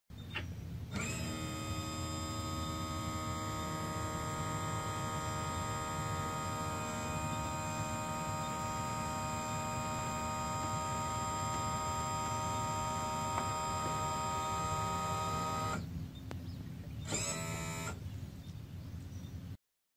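Electric power trim/tilt pump of a Volvo Penta stern drive whining steadily as it lowers the outdrive down from full tilt. It stops after about fifteen seconds, then runs again in one short burst about a second later.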